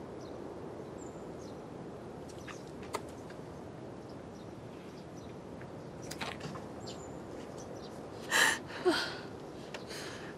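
Outdoor ambience: a steady low background with scattered high bird chirps, and two short, louder sounds about eight and a half seconds in.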